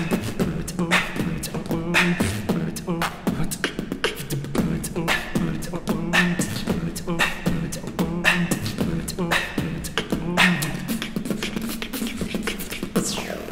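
Two people beatboxing together: a steady beat of kick, clicks and a snare about once a second over a low held bass line. The beat stops just before the end.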